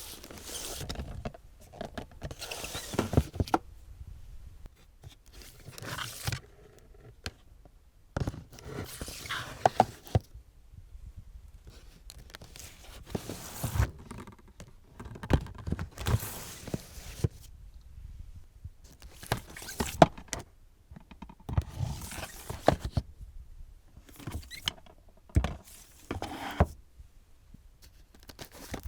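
Plastic DVD cases being slid out of a shelf and pushed back in, again and again: short scrapes of case against case, each with a sharp clack, every couple of seconds.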